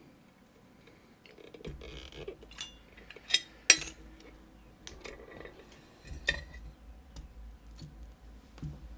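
Small metal clicks and clinks of a picked Trioving Twin Control lock being handled and taken apart, with a sharper clink a little under four seconds in, over low rubbing handling noise.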